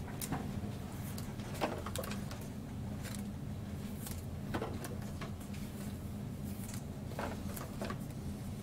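Scattered light clicks and rustles of trading cards and plastic sleeves being handled, over a steady low hum.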